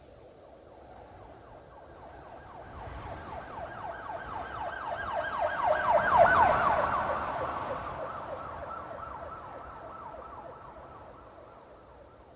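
Police car siren on a fast yelp, its pitch sweeping upward about four times a second. It grows louder to a peak a little past the middle, then fades away.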